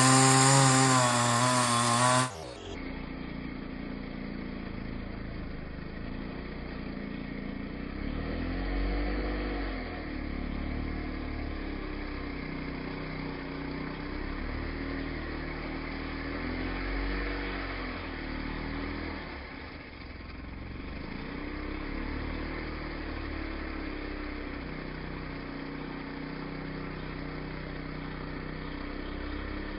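Two-stroke chainsaw engine running, its pitch rising and falling back as it is revved, around a third of the way in and again past the middle. It opens with a different loud sound of about two seconds with a wavering pitch, which cuts off abruptly.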